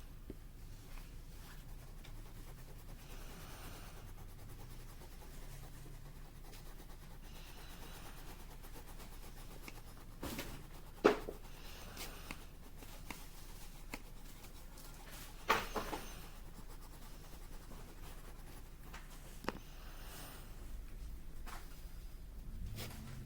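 Scattered clicks and light knocks of a small plastic gadget being handled over a faint steady hum, the loudest knock about eleven seconds in. Right at the end a small motor starts and rises in pitch as the mini desktop vacuum cleaner switches on.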